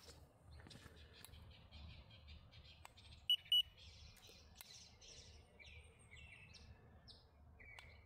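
Two short high beeps from a handheld infrared thermometer about three seconds in, as it takes a temperature reading, over birds chirping in the background.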